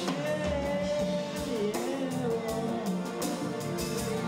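Live jazz band music with a man singing into a microphone: one long, wavering vocal line that slides down partway through, over the band and percussion.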